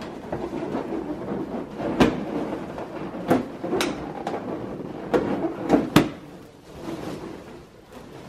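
Air-filled latex balloons being pressed and shifted by hand, rubbing against each other, with several sharp knocks. The loudest come about two and six seconds in.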